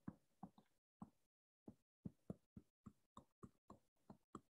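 Faint, irregular taps and clicks of a stylus tip on a touchscreen while letters are handwritten, about a dozen short ticks.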